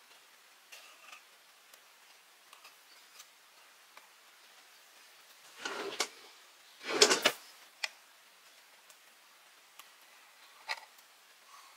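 Hands handling small craft pieces (white board panels and a plastic glue bottle), with light taps and clicks and two short handling noises about six and seven seconds in, the second the loudest.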